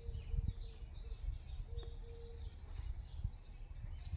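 Small birds chirping faintly, over a low, uneven rumble on the microphone.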